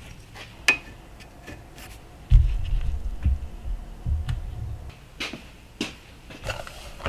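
Scattered clicks and knocks with a few low thumps as a pine block is handled and set into a drill-press vise.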